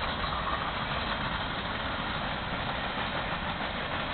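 Steady noise of a freight train's cars rolling past at a distance, with no horn or separate clanks standing out.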